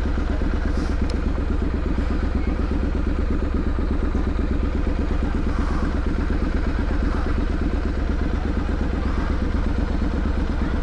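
Triumph Street Scrambler's parallel-twin engine and exhaust running at a steady, low speed in town traffic, its firing pulses even with no revving.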